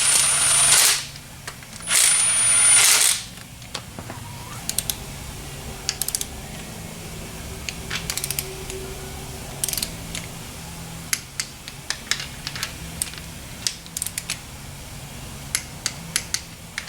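Two loud bursts of a compressed-air tool hissing with a thin high whine in the first three seconds, then scattered light metallic ratchet clicks as the engine's main and rod cap bolts are tightened.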